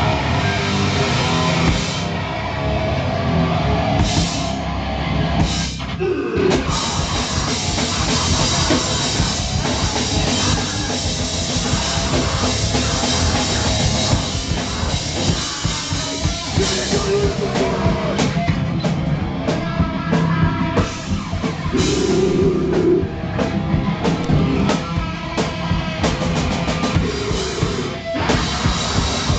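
Loud heavy rock played live by a band, with a drum kit pounding steadily under the guitars.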